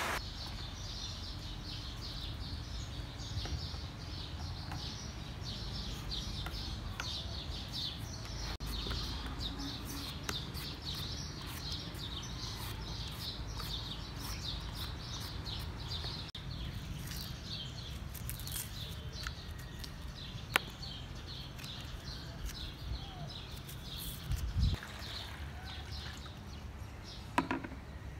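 Small birds chirping in quick, repeated short notes over a steady low background rumble, with a few sharp knocks near the end.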